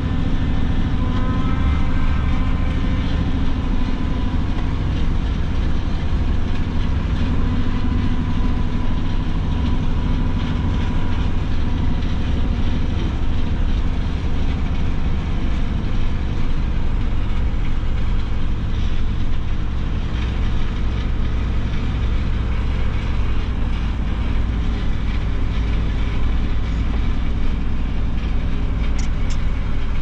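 Diesel engine of a Volvo dump truck running steadily under load, heard from inside the cab as the truck creeps along with its bed raised, spreading gravel, with a continuous rattle from the cab and chassis.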